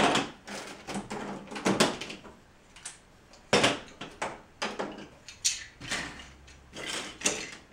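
Lego bricks being pulled off a model and set down on piles of loose bricks on a table: irregular plastic clicks and clatters, the sharpest right at the start and about three and a half seconds in.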